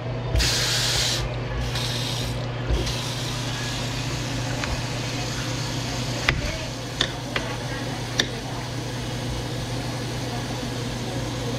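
Pull-down kitchen faucet spraying water in three short bursts, then a knife slicing tomatoes on a plate, with a few sharp clicks of the blade against the plate.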